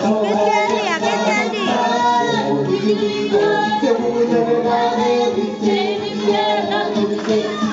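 Music with a group of people singing along, children's and women's voices among them, over the bustle of a crowded room.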